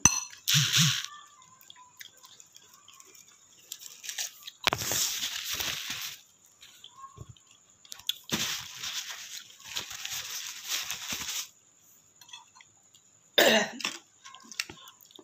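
A woman coughing and breathing hard in four bursts, her throat burning and tightening from very spicy chili noodles.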